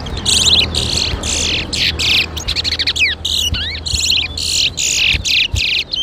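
Caged towa-towa (twa-twa) seed finches singing in rapid succession: short, fast-trilled song bursts about two a second, with a few sliding whistled notes near the middle, over a steady low hum.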